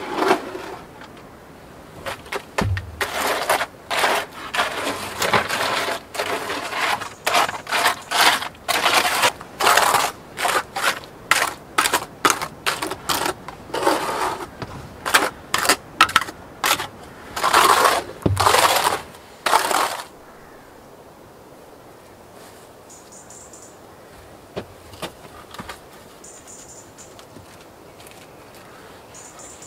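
A wide steel spatula scraping and smoothing wet cement on a board: quick, irregular strokes with two dull knocks. The scraping stops about two-thirds of the way through, leaving a quiet background with a few faint high chirps.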